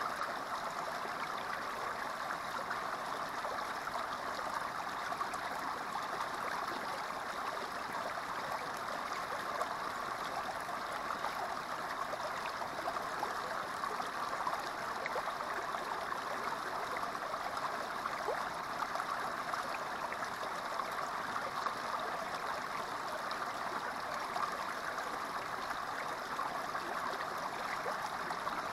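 Small creek flowing: water spilling down a narrow rock chute into a shallow pool, a steady babbling and splashing with small scattered droplet ticks.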